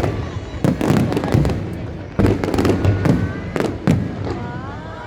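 Aerial fireworks bursting: a rapid, irregular series of bangs and crackles, with a sharp louder burst about two seconds in.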